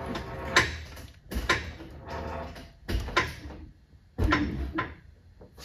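Ratchet wrench being worked on a bolt: short bursts of clicking and metal knocks on each stroke, several strokes roughly a second apart.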